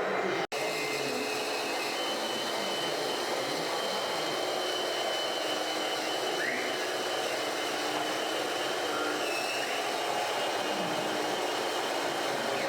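Small electric motors and gearboxes of 1/14-scale RC trucks and construction models running with a steady whir and a thin, high whine. The audio drops out for an instant about half a second in.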